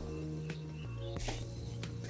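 Quiet background music with held low notes, which step down in pitch about a second in.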